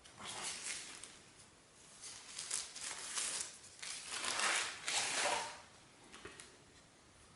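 Packaging being handled: crinkling and rustling in several bursts, with a few faint ticks near the end.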